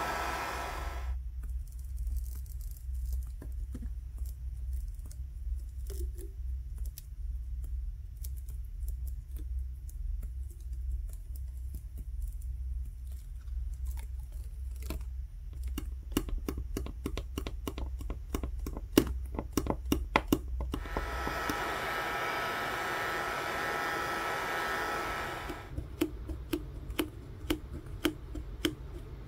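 A heat gun blowing stops about a second in. A thin metal pry tool then clicks and scrapes as it works adhesive loose at the edge of a Samsung Galaxy S20's frame, with the clicks coming thick and loudest near the middle. The heat gun blows again for about five seconds, and then a fingertip rubs and clicks as it rolls the softened adhesive off the phone's back.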